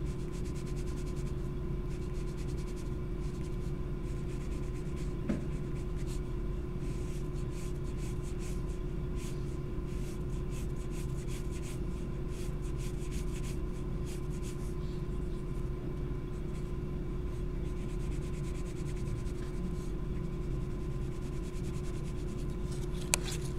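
Mechanical pencil graphite scratching on sketchbook paper in quick, repeated shading strokes, over a steady low hum.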